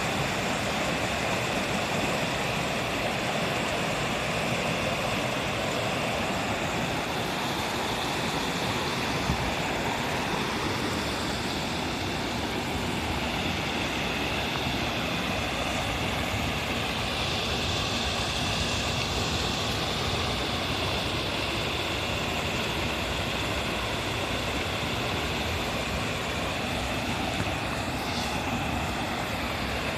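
Steady rushing of a mountain stream, an even wash of water noise that does not change.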